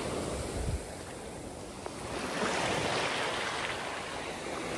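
Ocean surf washing onto a beach, swelling a little about two seconds in, with some wind on the microphone.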